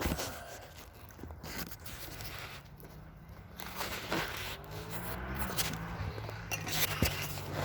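Huina 1494 RC excavator at work: its small motors hum and whine, the pitch shifting as the arm moves, with scraping and crunching of the bucket digging through dirt.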